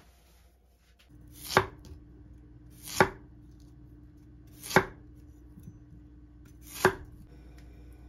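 Chef's knife slicing through a nagaimo (Japanese mountain yam) onto a wooden cutting board: four cuts, each a short slide through the yam ending in a knock on the board, about every one and a half to two seconds.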